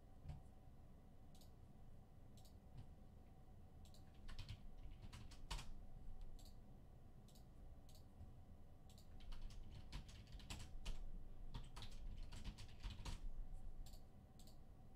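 Faint typing on a computer keyboard: irregular clicks that come in flurries about four seconds in and again from about nine to fourteen seconds in.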